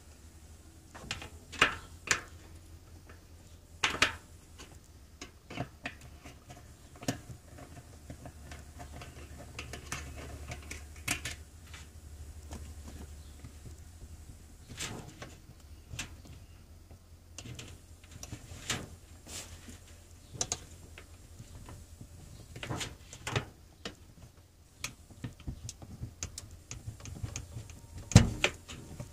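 A hand screwdriver backing screws out of an RV roof vent's plastic screen, with the screen and screws being handled: scattered clicks, ticks and light taps over a faint low hum, and a sharper knock near the end.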